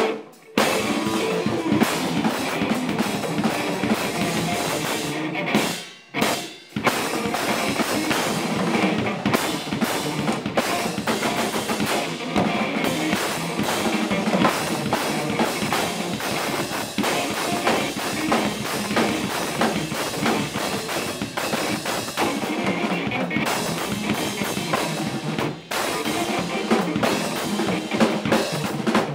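Rock band playing live: a full drum kit with bass drum and snare driving under guitar, with a brief stop about six seconds in before the band comes back in.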